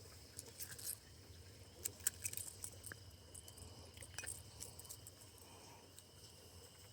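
Faint, steady high-pitched trilling of insects such as crickets, with scattered small clicks and rattles.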